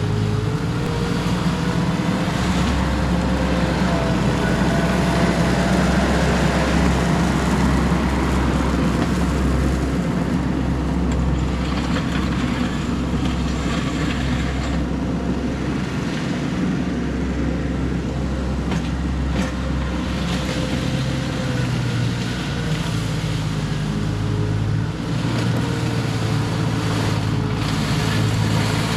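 Mini skid steer's engine running under working load, its note stepping up and down, with a thin whine over it that rises and falls.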